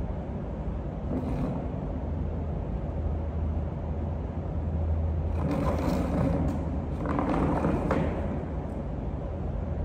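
A steady low hum runs throughout. About halfway through there are a few seconds of scraping, creaking and knocking as a plastic chair is shifted across a tiled pool deck.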